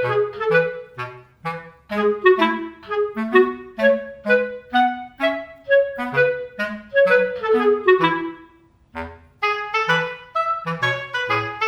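Background music: a light tune of short, quick notes over a bass line, with a brief pause about nine seconds in.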